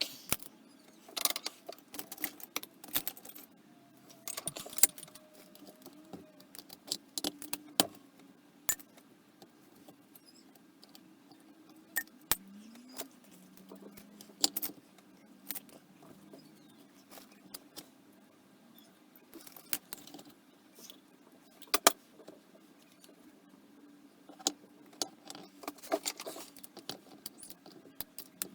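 Irregular metallic clicks and clinks of hand tools and small parts of a Dellorto DRLA 40 carburettor being handled and set down during disassembly.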